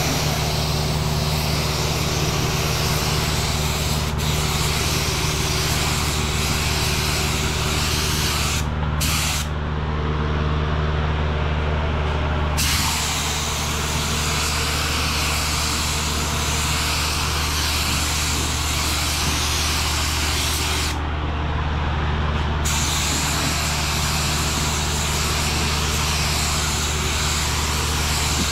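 Paint spray gun hissing steadily as it sprays sealer. The hiss stops for about three seconds around nine seconds in and for under two seconds about twenty-one seconds in. A steady low hum runs underneath.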